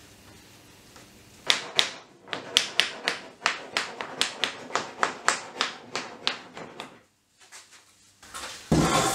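Hammer tapping on the wooden strips of a glued-up panel: about twenty quick, sharp taps at three to four a second, followed near the end by a louder, noisier knock and scrape.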